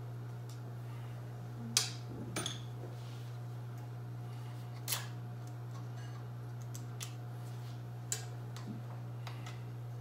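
Light, sharp clicks and clinks of small metal parts and tools being handled while working on a large-scale RC truck, about half a dozen spread out with two close together around two seconds in, over a steady low hum.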